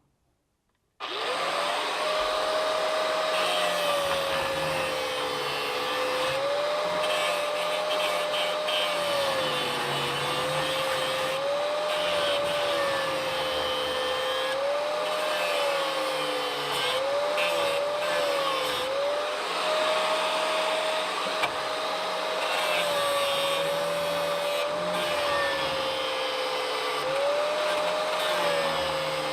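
Angle grinder grinding away a steel nut plate, starting about a second in and running steadily. Its motor pitch repeatedly dips and recovers as the disc is pressed into the metal.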